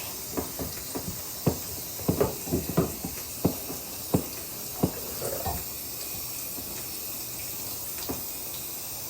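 Warm running water rinsing a hen's wet feathers, a steady hiss with irregular splashes and drips through the first half or so.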